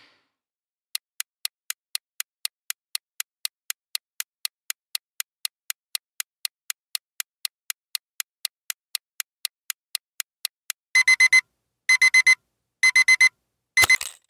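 Quiz countdown-timer sound effect: even clock ticks, about four a second, for roughly ten seconds. Then an alarm-clock beeping sounds in four short bursts a second apart, with a low thump under the last burst, as time runs out.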